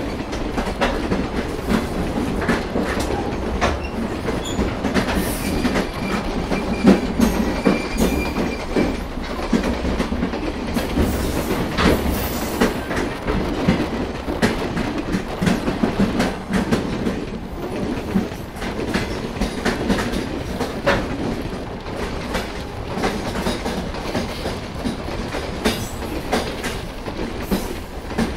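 Passenger train running at speed: the steady rumble of the coaches, with the wheels clattering irregularly over the rail joints.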